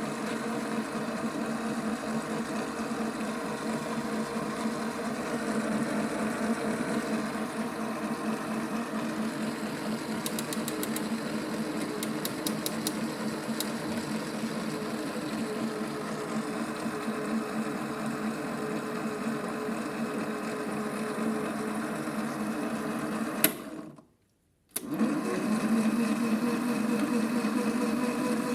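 Small electric motor of a Theo Klein toy Miele washing machine running steadily with a buzzing hum, with a few light clicks about ten to thirteen seconds in. The sound cuts out suddenly for about a second near the end, then the motor runs on.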